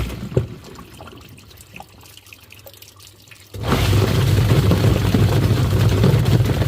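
Twin-tub washing machine's wash motor cuts off, leaving only faint drips and sloshing of water in the tub, then starts again about three and a half seconds in with a steady hum and churning water.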